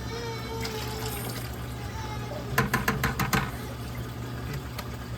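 Steady water running and a low pump hum from a saltwater reef aquarium's equipment, with a quick run of about six sharp clicks or taps around the middle.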